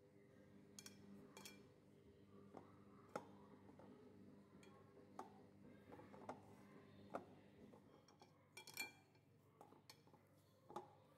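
Faint, scattered clicks and light taps of fingers against a glass bowl as a hand rubs and works maamoul dough crumbs, over a low steady hum.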